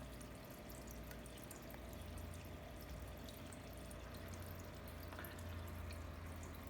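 Aquarium water trickling and dripping steadily, many small irregular splashes, over a low steady hum, as from the tank's filter return and pump.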